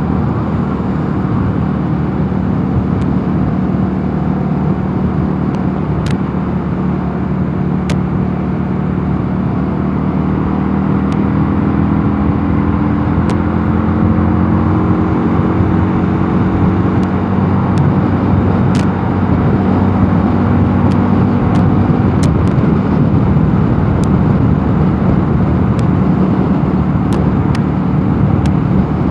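Mondial Nevada 250 motorcycle engine running steadily at road speed, under a constant rush of wind and road noise.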